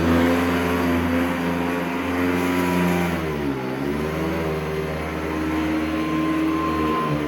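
Vintage Hoover upright vacuum cleaner running, its motor and fan giving a steady whine. About three and a half seconds in, the pitch dips and then climbs back up within a second.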